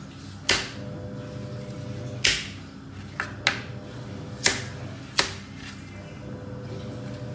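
Kitchen knife chopping potatoes: about five sharp knocks at uneven intervals.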